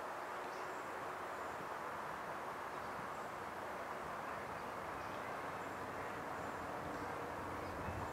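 Steady outdoor background noise, with faint short high chirps scattered through it.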